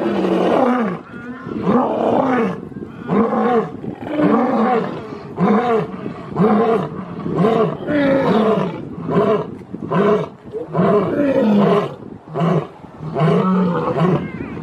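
Lion roaring: a long series of short, deep roars at about one a second.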